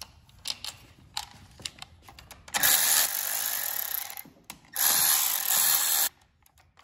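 Light clicks and taps of bolts being handled, then a Milwaukee cordless electric ratchet running twice, about a second and a half each time, as it drives bolts down snug.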